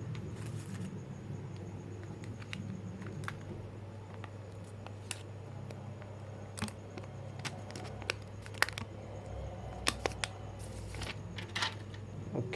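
Scattered small clicks and taps from handling a phone charger and its plastic packaging while unboxing, the sharpest coming in the second half, over a low steady hum.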